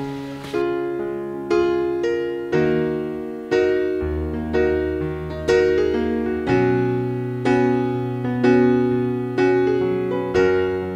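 Background music: gentle piano chords struck about once a second, each note ringing and fading.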